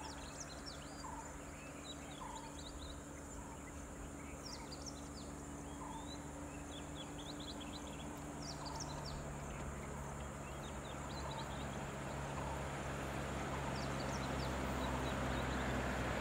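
Many forest birds chirping and calling, one with a short lower call repeated every second or two, over a vehicle engine idling that grows louder near the end.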